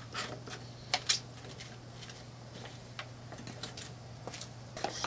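Plastic clicks and small knocks from a one-gallon pump sprayer being handled as its pump top is screwed onto the tank. Two sharp clicks come about a second in and another at three seconds, over a steady low hum.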